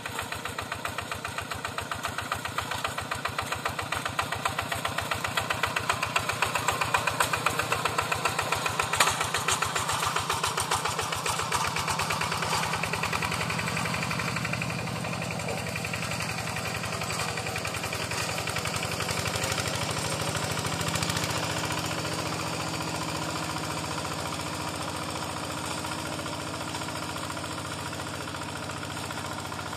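Yanmar Bromo Pro two-wheel hand tractor's single-cylinder diesel engine chugging with an even beat as it works a flooded paddy field. It grows louder as the tractor passes close, with one sharp knock about nine seconds in, then fades as the tractor moves away.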